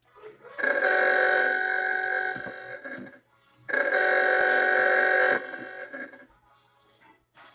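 Hockey arena goal horn sounding two blasts of about two seconds each, about a second apart, each a steady chord of several tones.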